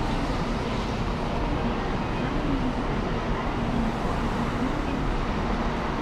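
Steady vehicle rumble with an even hiss, holding the same level throughout.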